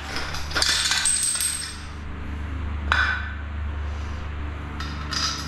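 Metal clinks and rattles of a sausage-type silicone gun being handled after it has come apart, with a sharp click about three seconds in and two short rattles near the end.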